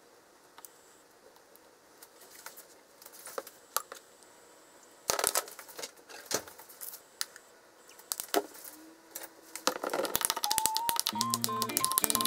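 Faint soft clicks of ham being torn by hand into a bowl of avocado, a burst of louder crinkly clicks around five seconds in, then from about ten seconds a dense wet crackling as avocado is mashed and mixed with mayonnaise in the bowl. Light background music comes in near the end.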